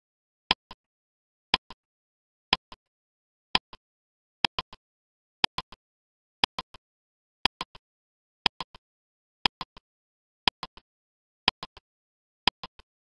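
Ticking sound effect of a countdown timer: one sharp tick every second, each followed by a softer second click, like a clock's tick-tock, with silence in between.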